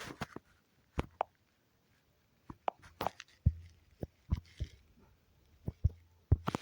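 Light taps and knocks on a hard surface, a dozen or so at uneven intervals, with a faint low hum under some of them.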